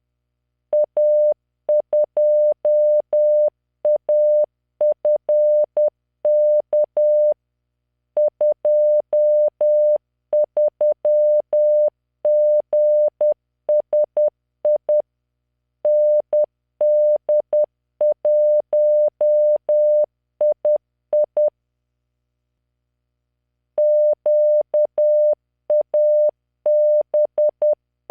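Morse code practice tone from LearningMorse training software: a single steady 600 Hz beep keyed on and off in dots and dashes at 10 words per minute, spelling five-character groups of random letters, numbers and punctuation. Short pauses separate the groups, and one gap of about two seconds comes past the middle.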